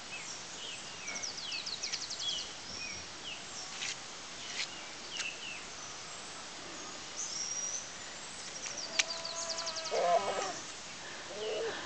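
Birds chirping and trilling, many short calls and several rapid trills. A single sharp tap comes about nine seconds in, and a short lower call just after it.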